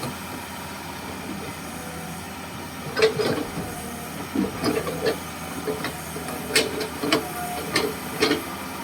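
Komatsu PC200-6 excavator's diesel engine running steadily, with a run of sharp metallic clanks and knocks starting about three seconds in.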